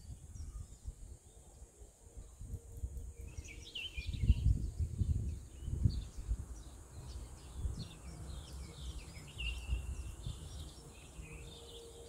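Breeze buffeting the microphone in uneven gusts, with small songbirds chirping and calling from about three seconds in.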